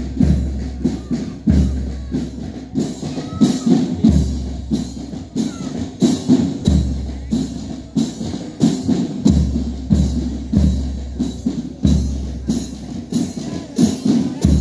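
March music with a steady drum beat of about two strokes a second and deep bass-drum thumps, keeping time for marching.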